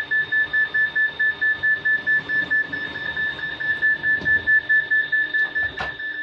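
Rapid electronic beeping at one high steady pitch, about six beeps a second, with two short sharp knocks near the end.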